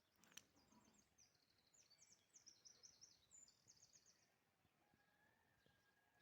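Faint song of a small bird: a quick run of high chirps lasting about four seconds, then near silence.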